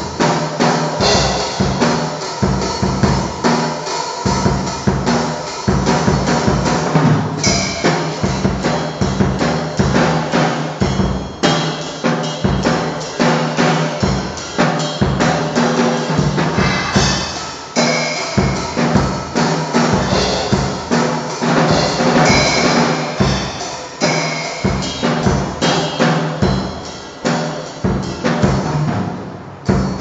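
Drum kit played without a break: a dense run of fast bass drum and snare strokes.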